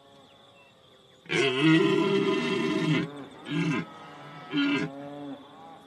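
Red deer stag roaring: one long, loud rutting roar about a second in, then two short grunting roars.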